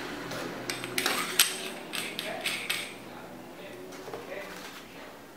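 Hands handling a shotgun microphone and its small parts in a foam-lined box: a quick string of clicks and light clinks, some with a slight ring, over about two and a half seconds, then quieter handling.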